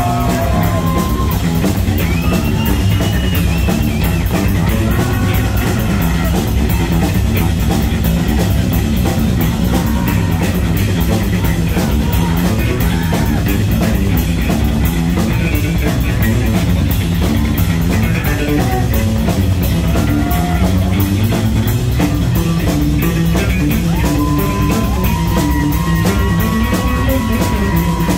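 Heavy metal band playing live: electric guitar, bass and a drum kit with steady cymbal hits, loud and continuous, with long held guitar notes bending near the end.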